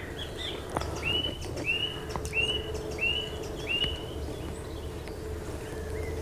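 A small songbird calling: five similar short chirps in a row, each rising then levelling off, about two-thirds of a second apart. Under the calls are a faint steady hum and the low rumble of open air.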